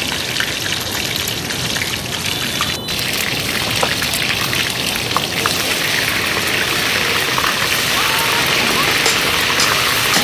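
Hot oil sizzling and crackling steadily around fish deep-frying in a wok. About three seconds in the sizzle changes abruptly and becomes brighter and hissier.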